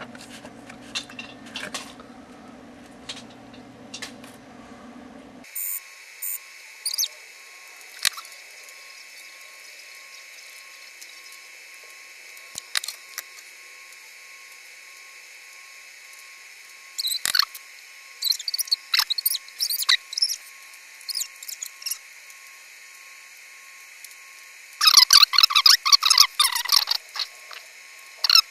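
Rosin-core solder melting onto a circuit board's connector pins under a soldering iron: short bursts of flux crackling and sizzling, loudest about 17 seconds in and again near the end, over a faint steady hiss. In the first few seconds a low hum with light clicks comes as the board is turned in its holder.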